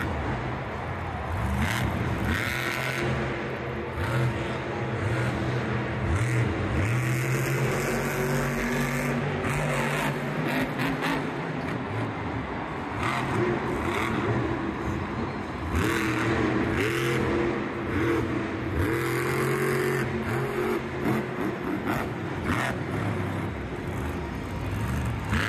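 Monster truck's supercharged V8 engine revving hard again and again, its pitch rising and falling, with several short bursts of noise over it.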